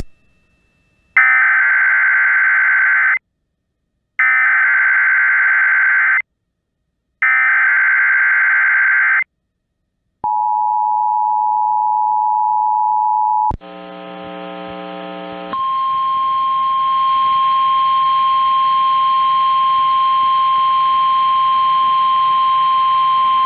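NOAA Weather Radio emergency alert: three bursts of the screeching SAME digital header, each about two seconds long with a second's pause between them. About ten seconds in comes a few seconds of steady tone, then a short buzz, then the long steady 1050 Hz warning alarm tone for about nine seconds. This signals a broadcast alert, here a severe thunderstorm watch.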